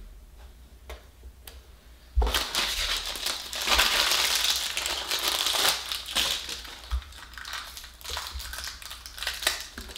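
Crinkly pink plastic packet of a toy blind bag being torn open and crumpled in the hands: a loud, dense crackling that starts suddenly about two seconds in and eases to softer, scattered crinkles after about four seconds.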